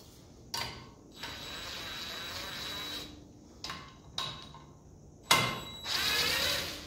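Cordless impact gun run in two short bursts, the first about two seconds long and the second about a second, backing out the gear housing's top cover bolts. Metal clinks come between the bursts, with a sharp knock, the loudest sound, just before the second run.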